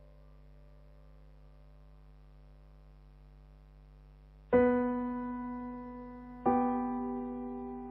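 Minimal electroacoustic music: a faint held drone of several tones, then about halfway in two struck keyboard chords about two seconds apart, each ringing and slowly dying away.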